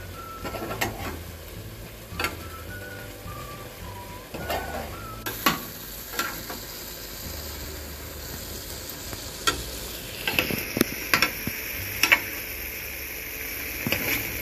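A spoon stirring and scraping chunks of fish in a coated frying pan, knocking against the pan now and then, over a sizzle. The sizzle grows much louder from about ten seconds in as the cooking water boils off.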